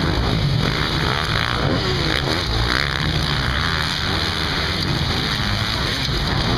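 Several motocross dirt bikes' engines running on a race track, their pitch rising and falling again and again as the riders open and close the throttle through the jumps and corners.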